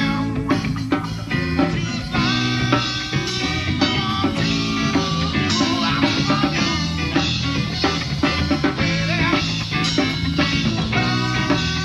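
Live rock band playing: a male singer's voice over electric guitar and a drum kit, heard through a poor-quality VHS recording.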